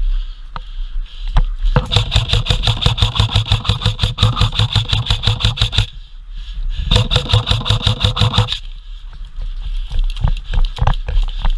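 Airsoft electric gun firing two long full-auto bursts, about twelve shots a second with the whine of its motor-driven gearbox; the first burst lasts about four seconds, and the second, shorter one comes after a brief pause.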